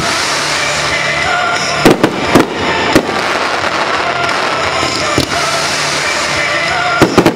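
Fireworks display: a continuous hiss and crackle of fountains and bursting stars, broken by sharp bangs of shells. There are a few bangs about two to three seconds in, one a little after five seconds, and a quick cluster of them near the end. Music plays underneath.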